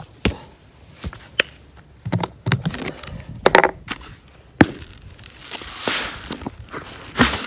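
Scattered knocks and rustles of a woven grass basket and plastic bucket being handled. From about five and a half seconds in, a hiss of wet pearl millet grains pouring from the plastic bucket into the coiled basket.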